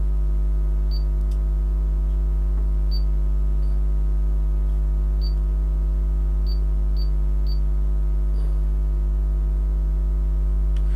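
Loud, steady mains-frequency electrical hum with a stack of overtones, plus a few faint, short high ticks.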